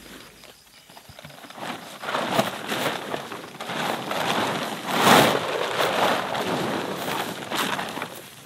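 Blue plastic tarpaulin crackling and rustling as it is pulled from its bag, unfolded and shaken out, loudest about five seconds in.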